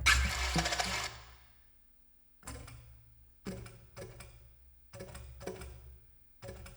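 Improvised experimental music. A loud, noisy burst opens it and dies away over about two seconds, then after a short pause come sparse, short clattering percussive sounds, roughly one a second.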